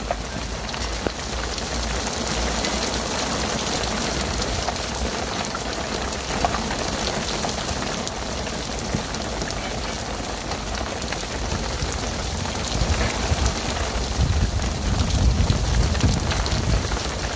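Heavy rain pouring down at the onset of a rainstorm, a steady hiss dotted with drop impacts. About three-quarters of the way in, low gusty buffeting swells up, like wind hitting the microphone.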